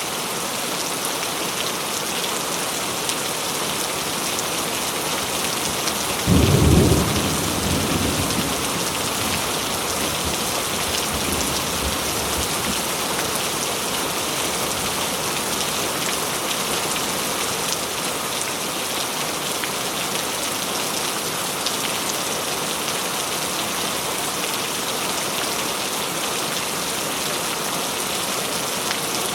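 Steady heavy rainfall, with a single loud, low clap of thunder about six seconds in that rumbles away over the next few seconds.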